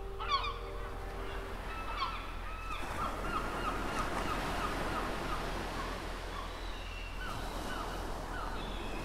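A flock of birds calling: short calls that fall in pitch, coming singly and in quick runs, over a faint steady hiss.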